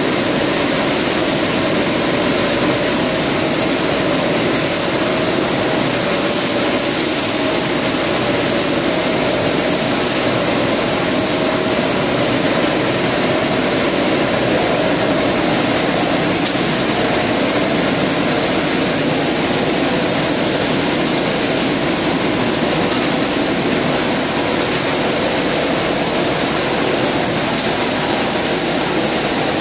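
LDPE blown film extrusion line running: a loud, steady machine noise with a few constant hum tones, unchanging throughout.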